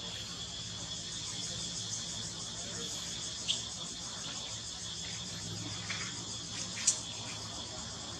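A steady, high-pitched drone of insects, with two short sharp clicks about three seconds apart, the second one louder.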